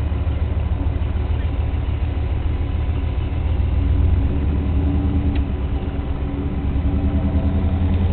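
Camaro's V8 engine running at low speed, heard from inside the cabin: a steady deep rumble with a fast even pulse, a little louder about four seconds in.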